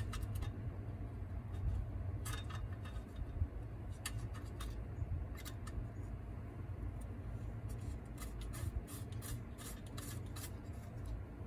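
Irregular small metal clicks and scrapes of an Allen key and bolts being worked by hand into a cut-off saw's housing, bunched into several short flurries, over a low steady hum.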